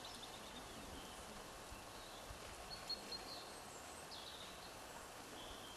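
Faint steady background noise with a few short, high bird chirps scattered through it.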